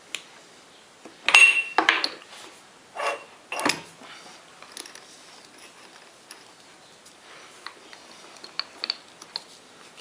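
Metal parts and tools being handled on a lathe, with a quick run of loud metallic clanks about a second in, two more knocks a moment later, then a few light clinks.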